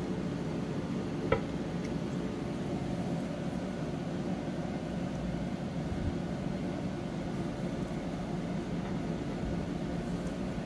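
Steady low background hum, with one sharp click about a second in.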